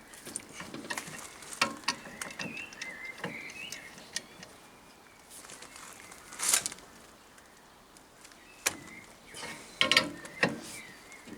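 Scattered clicks, knocks and rattles of things being handled and set down, the loudest about six and a half and ten seconds in, with a faint wavering chirp a couple of seconds in.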